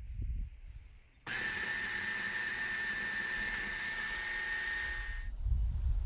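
Small electric food chopper's motor running steadily with a high whine as it blends a thick Biscoff-and-butter paste, switched on about a second in and cut off abruptly about four seconds later.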